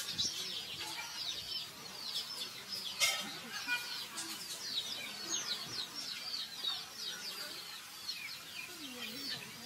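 A busy chorus of many small birds chirping, short high chirps overlapping without a break, with one sharp click about three seconds in.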